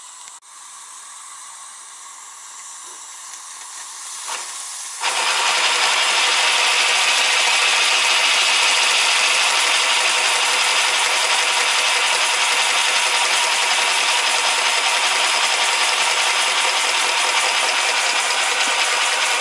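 Live steam hissing from a scratch-built 0-8-4 garden-railway locomotive's boiler. A soft hiss about five seconds in jumps suddenly to a loud, steady hiss as steam is let out.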